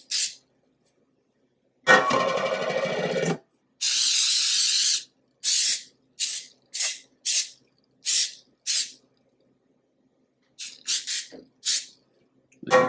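Aerosol cooking spray hissing onto a metal cake pan in a series of short bursts, with a longer spray about four seconds in and a rougher, fuller burst about two seconds in.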